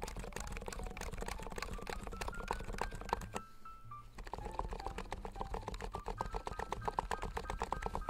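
Fast continuous typing on a NIZ Atom68 electro-capacitive keyboard, a rapid stream of keystroke clicks. For the first half the keys have the 35 g spring-free switches. After a short pause about halfway, the typing is on the 45 g switches with springs fitted.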